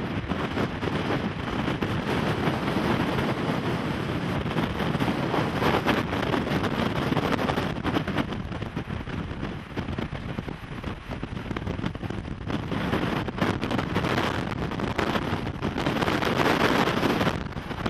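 Wind buffeting the microphone, a gusty rushing noise that rises and falls.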